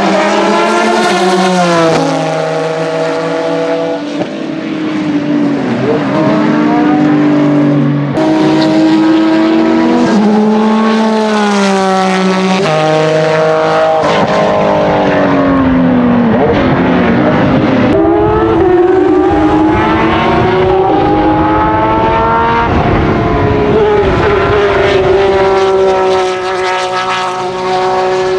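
Porsche 996 GT3 race cars' 3.6-litre flat-six engines at racing speed. The revs climb and then drop suddenly several times as the cars downshift and accelerate. A car passes by about halfway through.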